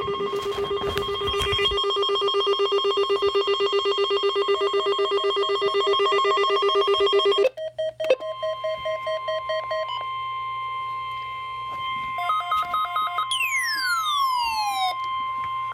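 Electronic alert tones. A rapidly pulsing, ringing chord of several steady pitches lasts about seven and a half seconds, then breaks off. A steady single tone with short beeps over it follows, and near the end several falling sweeping tones.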